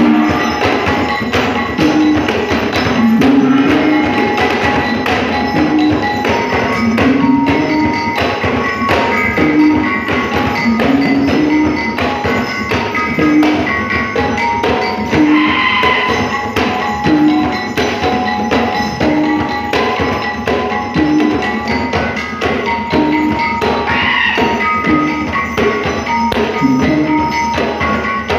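Traditional Dayak dance music: a percussion ensemble with ringing tuned mallet percussion over a steady, dense beat of struck drums and wood, a low note recurring about once a second.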